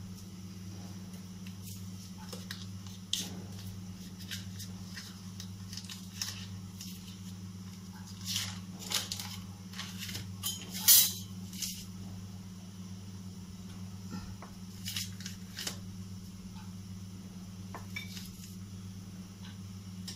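Kitchen utensils and small bowls clinking and knocking now and then, the loudest clatter about eleven seconds in, over a steady low hum.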